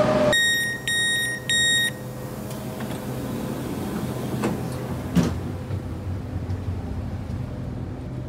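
Three short electronic beeps from the door warning of a Southeastern Class 395 train, followed by the steady hum of the stationary train, with a couple of knocks near the middle.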